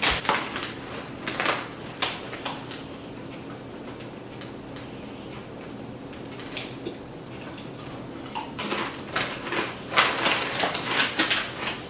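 Crinkling and rustling of a foil-lined potato-chip bag being rummaged and shaken. It comes in quick crackly bursts, quieter in the middle and busiest near the end.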